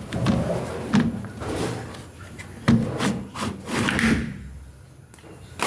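Irregular knocks, clicks and scraping of hands working on a Samsung washing machine, prying parts open to reach its filter.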